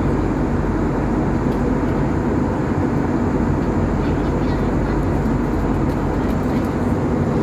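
Steady cabin noise inside an Airbus A321neo: the rumble of its Pratt & Whitney PW1100G geared turbofan engines and the rush of air, with a few low engine tones held steady.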